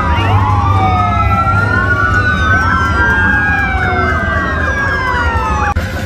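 Several sirens wailing at once, their long overlapping tones slowly rising and falling in pitch, cutting off abruptly near the end.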